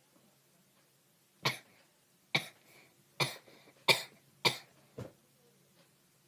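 A person coughing six times in short, sharp bursts, a little under a second apart.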